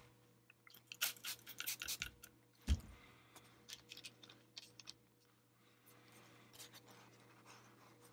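Faint rubbing and scraping of a paper towel wiping small plastic button casings clean, with light clicks and taps as the parts are handled in the parts tray. One louder knock comes a little under three seconds in.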